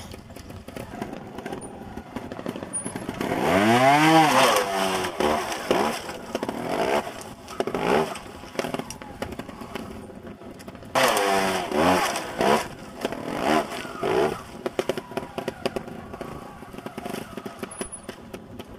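Two-stroke trials motorcycle engine revved in sharp bursts as the bike climbs rock steps: a long rev about four seconds in, another about eleven seconds in, quick blips of the throttle between, and the engine ticking over low in the gaps.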